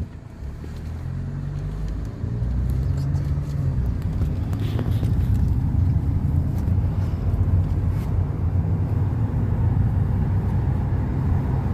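A motor vehicle's engine and road rumble, a low steady drone that grows louder about two seconds in and then holds even.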